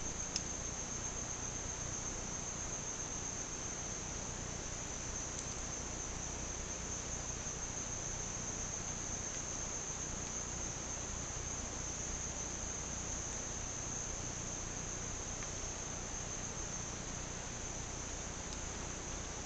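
Rainforest insects calling in a continuous chorus, one steady shrill high-pitched tone that holds without a break.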